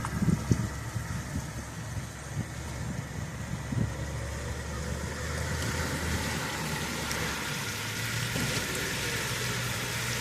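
Car engine running at a low, steady hum with an even hiss, heard from inside the car, with a few soft knocks about half a second in.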